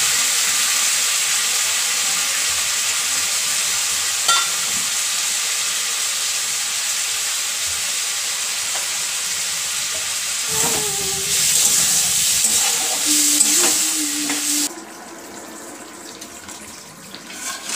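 Potatoes and masala frying in oil in a wok on a gas stove: a steady sizzle. It drops away abruptly about fifteen seconds in, leaving a much quieter background.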